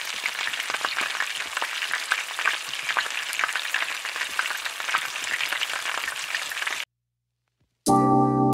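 Crackling sizzle like food frying in hot oil, dense with small pops, which cuts off suddenly after about seven seconds. After a second of silence, soft keyboard music begins near the end.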